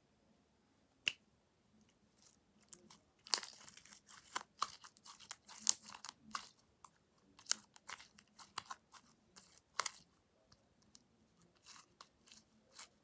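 Sticky homemade glue slime being stretched and kneaded by hand, giving irregular wet pops and clicks: one about a second in, then a dense run from about three to ten seconds, and a few more near the end.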